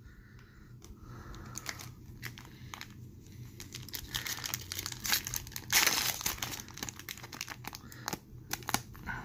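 Foil hockey card pack wrapper crinkling and tearing as it is pulled open by hand, with irregular crackles throughout, loudest about six seconds in.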